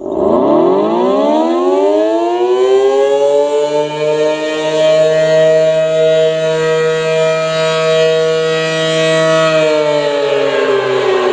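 Outdoor tornado warning siren starting up from rest: its several tones rise in pitch over about three seconds and hold a steady wail. About ten seconds in, the pitch begins to fall as it winds down.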